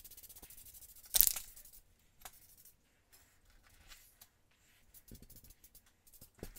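Aerosol spray-paint can giving one short hiss about a second in, with a few light clicks and taps after it.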